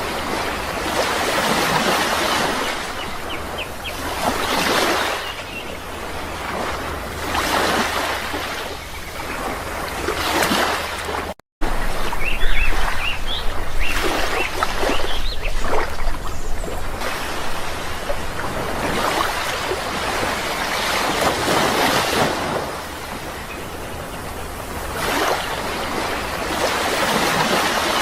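Sea waves breaking and washing in, swelling and fading one after another every few seconds, with short bird chirps over them at times. The sound drops out for an instant about eleven seconds in, then the surf comes back louder.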